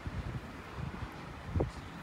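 Wind buffeting the microphone in uneven low gusts over a steady hiss, with one stronger low thump about one and a half seconds in.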